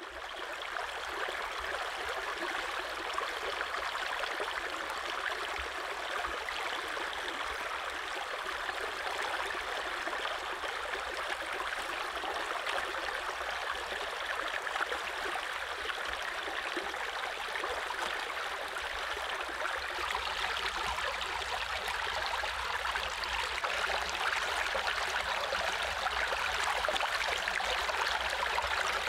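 Shallow stream running over rocks: a steady rush of water, a little louder in the last few seconds.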